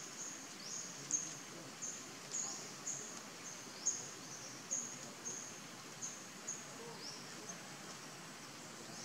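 A small bird repeating a short, high-pitched chirp, each note sweeping quickly upward, about twice a second, stopping about three-quarters of the way through, over faint steady forest background noise.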